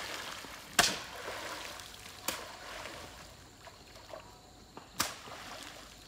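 Three sharp slaps on pond water, the first the loudest, each followed by a brief splash and trickle: the water surface is being beaten to drive fish into a net.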